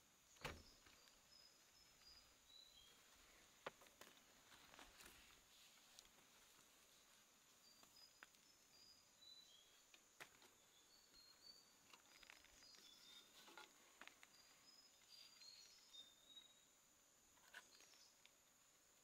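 Faint forest ambience: a steady high-pitched insect drone with short chirping bird notes, several falling in pitch, and scattered clicks and soft knocks, the loudest about half a second in.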